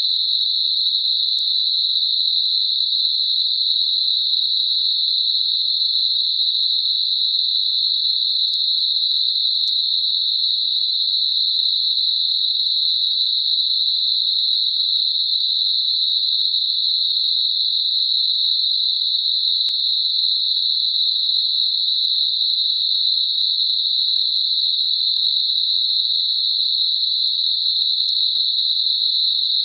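Synthetic 4 kHz narrow band noise: a steady, unchanging high-pitched hiss with no low sound beneath it. It is a tinnitus masker meant to blend with high-pitched ear ringing.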